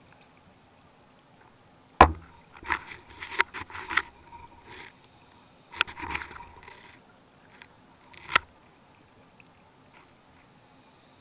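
Underwater: a scuba diver's exhaled bubbles gurgling from the regulator in two bursts, about four seconds apart. Sharp knocks of gear or camera handling come about two seconds in, with the start of the second burst, and once more near the end.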